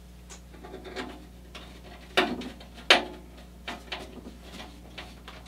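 Clicks and knocks of parts being handled and fitted on a Caselabs Magnum SMH10 aluminium computer case frame, with two sharper knocks a little over two seconds in, less than a second apart.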